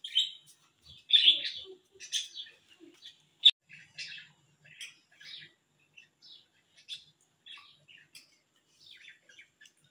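Caged budgerigars chirping and chattering in many short, high calls. There is one sharp click about three and a half seconds in.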